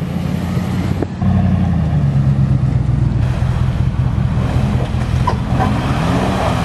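Pickup truck engine running while driving off-road, its pitch rising near the end as the truck pushes through a shallow creek crossing, with water splashing.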